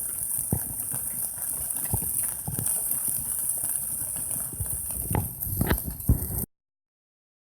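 Wood campfire crackling: scattered sharp pops and snaps at irregular intervals over a steady high hiss, cutting off abruptly to silence about six and a half seconds in.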